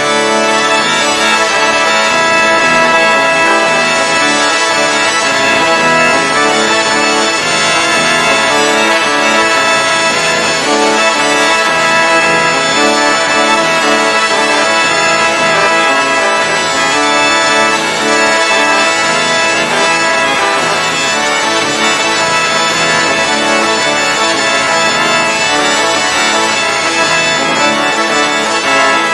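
Bagpipes playing without a break: steady drones held under a melody of changing notes.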